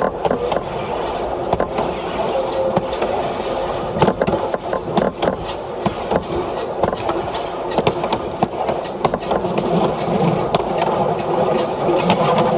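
DP-class diesel railcar running along the line, heard from the driver's cab: a steady rumble of engine and running gear with frequent irregular clicks and knocks from the wheels and rattling fittings, busiest about four to six seconds in.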